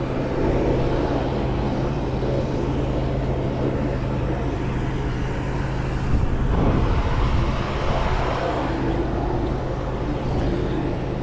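Steady low engine drone under a rushing outdoor noise; the drone stops and the sound changes about six and a half seconds in.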